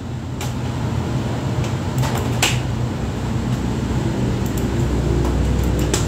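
Steady whirring background noise with a low hum that grows louder from about four seconds in. Over it come a few sharp clicks, two of them about two seconds in and a scatter of small ones near the end, as a computer mouse is used to switch windows and open a browser tab.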